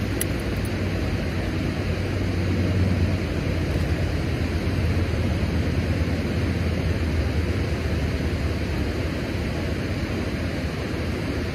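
Steady rush of fast-flowing water tumbling over rocks below a dam, with a low rumble underneath.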